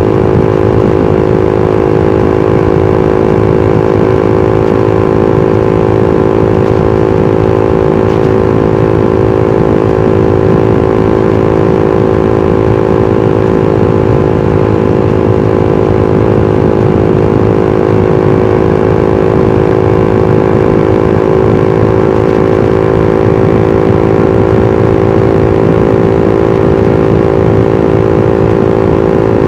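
Suzuki GSX-R150's single-cylinder engine and exhaust under way at a steady cruise, the engine note holding an even pitch with road and wind rumble beneath it.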